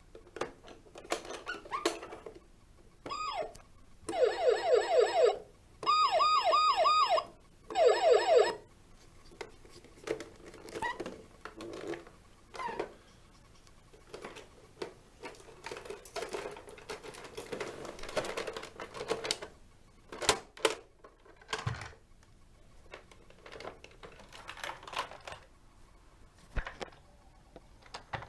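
A toy fire engine's electronic siren sound effect plays a few seconds in. It comes as a brief chirp, then three short bursts of a fast warbling wail. After that, plastic clicks, knocks and rattles follow as the toy is handled and opened out into a playset.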